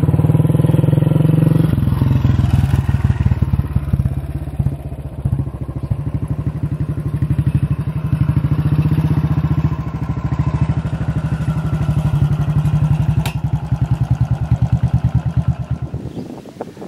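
Royal Enfield single-cylinder motorcycle engine running with a rapid, even beat. Its level swells and dips a little before fading out near the end.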